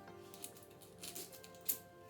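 Kitchen knife chopping on a cutting board: three sharp knocks, the loudest near the end, over steady background music.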